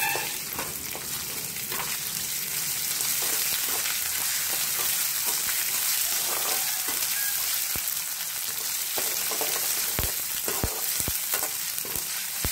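Chopped onions and dried red chillies sizzling in hot oil in a kadai while a metal ladle stirs and scrapes them, with a few sharp knocks of the ladle against the pan in the last few seconds.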